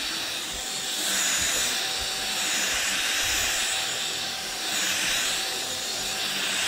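LG CordZero cordless stick vacuum running on its lowest power level, its bristle carpet head pushed back and forth over a rug: a steady airy hiss that swells and eases every couple of seconds.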